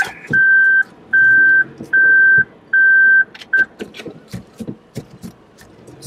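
A car's electronic warning beeper sounding about five loud, evenly spaced beeps of one steady high tone, each about half a second long, then a sixth beep cut short, with a few faint clicks around them.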